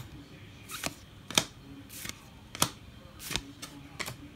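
A stack of Topps baseball cards being flipped through by hand, each card slid off the front of the stack with a short snap. About seven snaps in a row, roughly one every two-thirds of a second.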